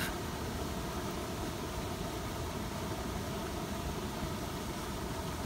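Steady rushing background noise, even throughout, with no distinct events.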